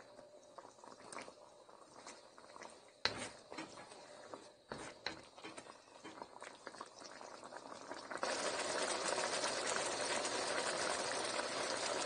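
Curry shrimp in coconut milk simmering in a pot. At first there are only faint pops and clicks, with one sharper knock about three seconds in. About eight seconds in, a louder, steady bubbling hiss starts suddenly.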